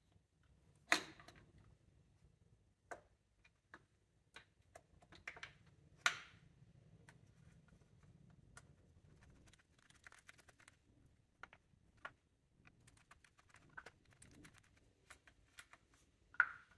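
Light scattered clicks and taps of metal parts being handled and fitted, with three sharper clanks: one about a second in, one around six seconds and one near the end. The parts are an engine belt tensioner and its damper strut going into place.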